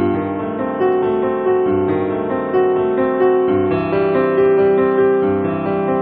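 Background piano music: a slow melody of held notes, a new note sounding every second or so.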